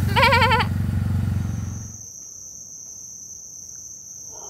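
A goat bleats once, a quavering call of about half a second, over the low hum of an engine running; about two seconds in these stop and give way to crickets chirring steadily in a high, thin tone.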